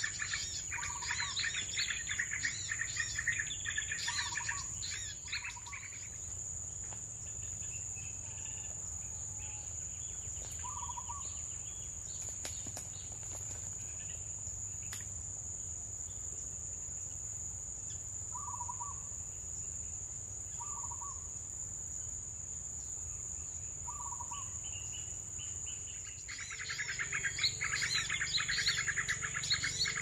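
Small birds chirping rapidly in a dense, overlapping chatter that stops about six seconds in and starts again near the end, with a few short single call notes in between, over a steady high-pitched insect drone.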